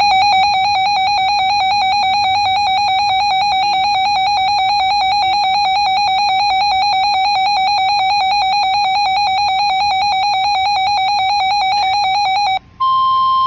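A room full of NOAA weather radios alarming together as a severe thunderstorm warning comes in: one shrill, steady electronic tone with a fast flutter, held for about twelve seconds. It cuts off, and after a brief gap the Weather Radio's 1050 Hz warning alarm tone starts near the end.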